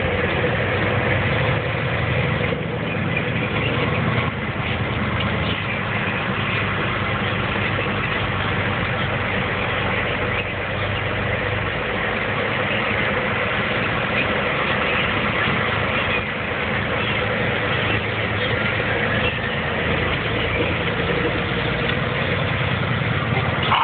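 Steady engine and road noise heard from inside the cab of a truck driving along a highway.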